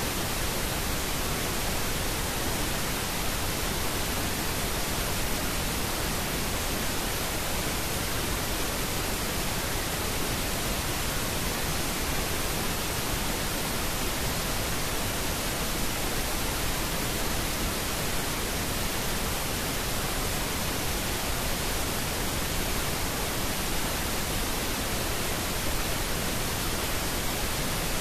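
Steady, even hiss of pink noise, like radio static, serving as the masking bed of a subliminal affirmation recording.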